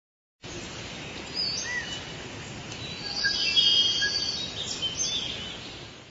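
Forest ambience with birdsong: a steady background hiss with several short bird calls and chirps over it, swelling in the middle and fading out near the end.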